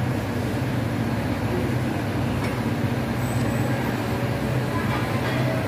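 Steady low mechanical hum of a motor or engine running, unchanging throughout.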